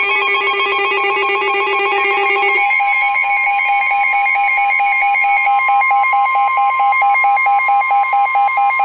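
NOAA Weather Radio alert tones signalling a Flash Flood Warning: a loud, rapidly pulsing electronic beep. A little under three seconds in, the lower tone drops out and the steady 1050 Hz warning alarm tone takes over beneath the pulsing.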